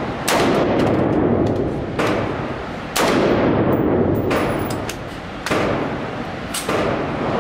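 Rifle shots fired one at a time, six shots about a second or so apart, each followed by a long echoing tail from the enclosed indoor range.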